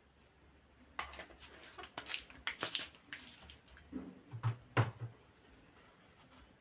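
A quick run of sharp clicks and light knocks, then two or three duller knocks about four to five seconds in.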